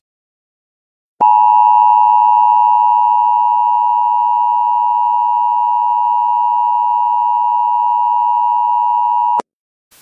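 Emergency Alert System two-tone attention signal: a loud, steady electronic alarm tone. It starts about a second in, holds unchanged for about eight seconds, and cuts off abruptly near the end.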